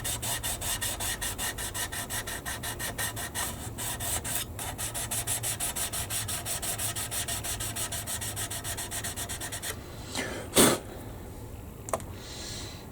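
Fast, even rubbing or scraping strokes by hand, about six a second, for nearly ten seconds. They stop, followed by one loud knock and a small click near the end.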